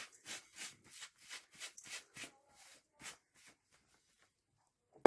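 Spices being tapped and shaken off a plate into a stainless steel bowl: a run of soft ticks and rustles, about three a second, that stops about three and a half seconds in.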